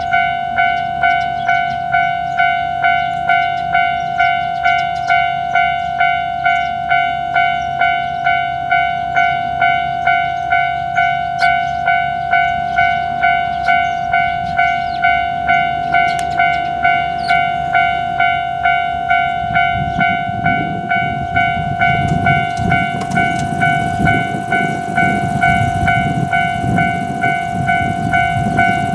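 Japanese railway level-crossing warning bell ringing its repeated "kan-kan" tone, about two strikes a second. About twenty seconds in, a train rumbles past over the crossing beneath the bell.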